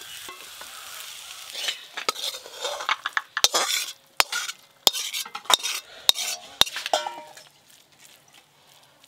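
Stir-fried water spinach sizzling in a hot aluminium karai, then a metal spatula scraping the pan and knocking against it and a steel plate as the greens are served out, about half a dozen sharp metallic clinks.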